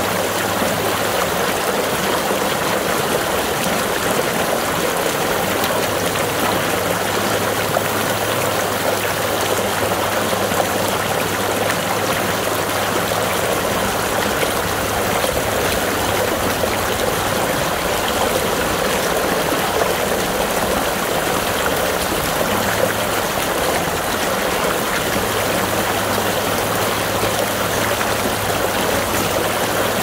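Lake water pouring steadily out of a drain pipe's outlet and splashing into the muddy pool below, a constant rushing splash.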